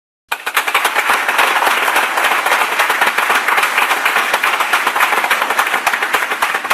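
Audience applauding: many hands clapping in a dense, steady patter. It starts abruptly a moment in and runs at an even level.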